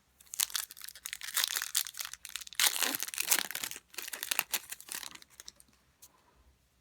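Foil wrapper of a trading card pack crinkling and tearing as it is opened and handled. The crackling is dense for about five seconds and then stops.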